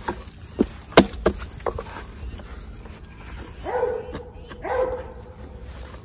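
A metal-topped wooden beehive outer cover is knocked several times, sharply, to clean dead bees out of it. Then a dog whines twice, briefly, about a second apart.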